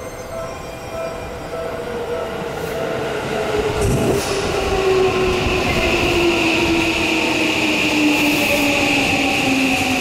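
Seibu 20000 series electric train pulling into the platform and braking: its Hitachi IGBT VVVF inverter tones fall steadily in pitch as it slows, getting louder, with a high whine. A single thump about four seconds in.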